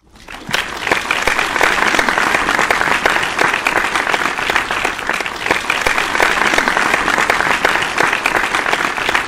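Audience applauding steadily, fading in over the first second.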